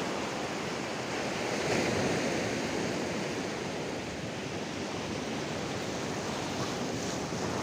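Sea surf breaking and washing over rocks in a steady rush, swelling a little about two seconds in.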